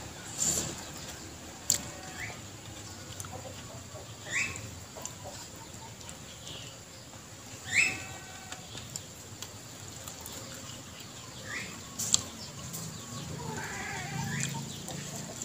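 Mouth sounds of someone eating rice and raw vegetables with their fingers: chewing, lip smacks and two sharp mouth clicks. Over them come short, falling bird calls, about five over the stretch, one louder about eight seconds in.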